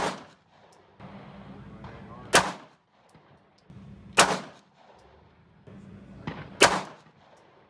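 Four gunshots, about two seconds apart, each a sharp crack with a short fading tail.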